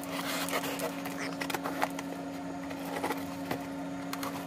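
Plastic shipping pouch crinkling and rustling as it is cut and pulled open with a folding knife, with scattered small clicks and taps, over a faint steady hum.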